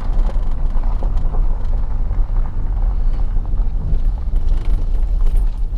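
A vehicle driving on a dirt road, heard from inside the cab: a steady low rumble of engine and tyres, with a few faint ticks.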